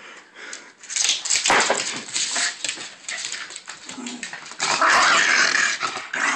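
Dog making playful growling noises during a game of fetch, irregular and noisy, with its loudest stretch lasting about a second and a half, starting a little past the middle.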